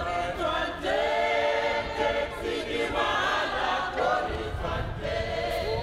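A group of people singing together, several voices holding and sliding between notes at once.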